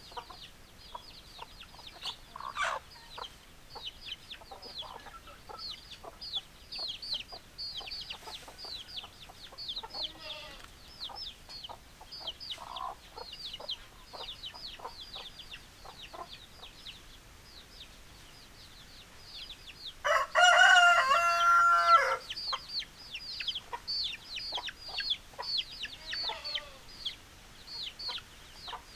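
Chickens: steady high, short falling peeps throughout, with a few scattered clucks. About two-thirds of the way in, a rooster crows once, loudly, for about two seconds.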